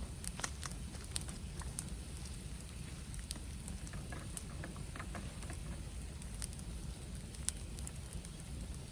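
Bamboo burning in a bonfire: irregular crackles and sharp pops over a steady low rumble, with one louder snap late on.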